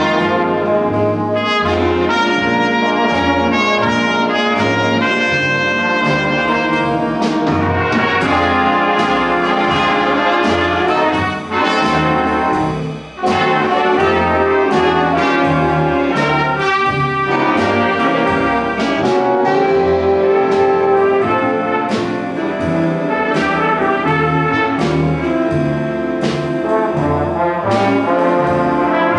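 Big band playing swing jazz live: trumpets, trombones and saxophones over upright bass and drums. The band briefly drops out about halfway through, then comes straight back in.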